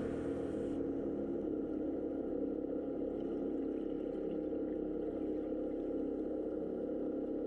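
A steady, low motor hum heard underwater, with faint even tones and no breaks, typical of a boat engine carried through the water. The tail of background music fades out in the first second.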